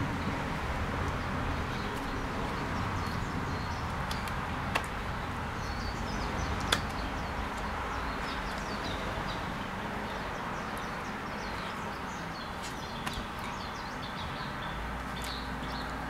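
Outdoor background ambience: a steady hiss with small birds chirping over and over in short high notes. A few sharp clicks stand out, the loudest about seven seconds in.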